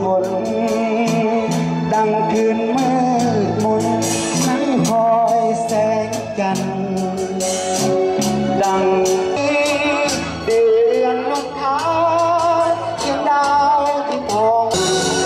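Live band music amplified through PA speakers: a man singing a wavering melody over electric guitar, bass notes and drums.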